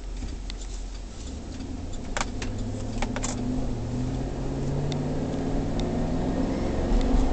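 Cabin sound of a 2008 GMC Denali's 6.2-litre V8 and tyres on the road, the engine note rising from about three and a half seconds in as the truck accelerates. A few sharp clicks sound about two to three seconds in.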